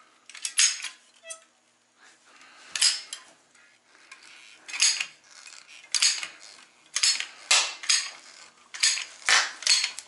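Manual caulking gun being pumped to lay a bead of construction adhesive. Its metal trigger and plunger rod make about ten short metallic clacks, irregularly spaced and coming faster in the second half.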